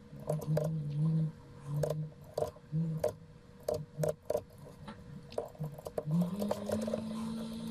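Computer keyboard and mouse clicks, scattered and irregular, over a low background drone that glides up in pitch about six seconds in and then holds steady.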